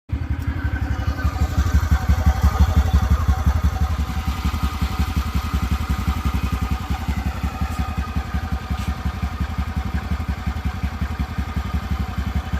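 TVS Ntorq 125 scooter's single-cylinder four-stroke engine running at idle with a steady, even beat, after its loose one-way starter clutch bolt has been tightened, the fix for its tik-tik / khat-khat knock.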